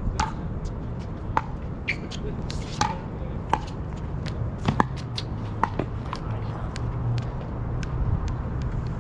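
Pickleball paddles hitting hard plastic balls: sharp pops at irregular intervals, some louder than others, over a steady low rumble.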